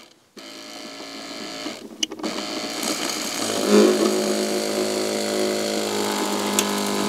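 SailFlo 12-volt water pump starting up and running with a steady motor hum as it primes, drawing water from the bucket and pressurising the line to the heater. It starts about half a second in, builds in level, and about halfway through settles into a louder, steady run.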